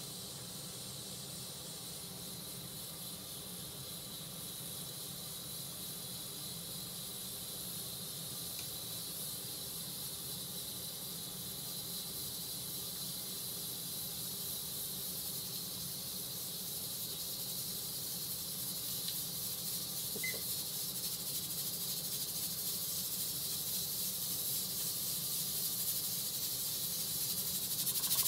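Pressure cooker on a gas burner hissing steam from its lid valve, a steady high hiss that slowly grows louder as the pot comes up to pressure.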